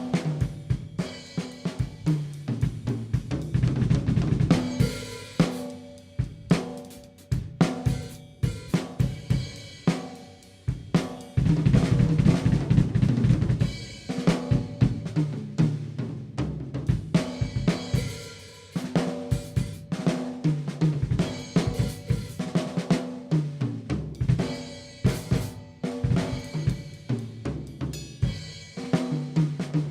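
Close-miked Pearl Vision birch drum kit played in a groove: snare, bass drum, hi-hat and cymbals, with a dense, loud run of rapid hits about halfway through.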